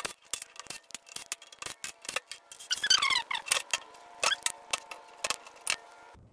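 Rapid, irregular metallic clicks and clinks of tools and transmission parts being handled during a TH400 teardown, sped up by time-lapse, with a brief falling whine about three seconds in.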